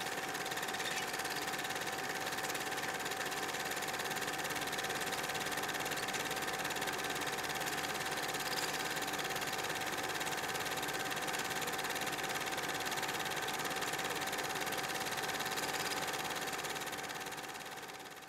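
Steady mechanical whirring hum with a constant high-pitched tone, fading out near the end.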